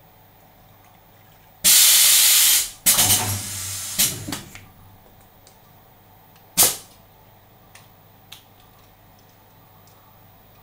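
Blow moulding machine's compressed air: a loud, steady blast of hissing air lasting about a second, then a run of shorter hissing blasts with sharp starts over a low hum. About six and a half seconds in comes one brief, sharp burst of air.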